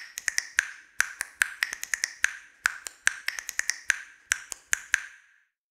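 A quick, uneven run of sharp clicks, each with a brief ring, about thirty in all. They grow fainter and stop a little after five seconds in.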